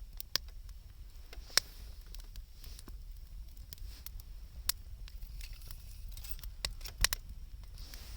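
Wood campfire burning, with irregular sharp crackles and pops over a faint hiss; the loudest pops come about one and a half seconds in and again around seven seconds in.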